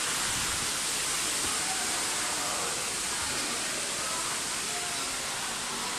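Steady rushing hiss like falling water, with faint voices of people nearby.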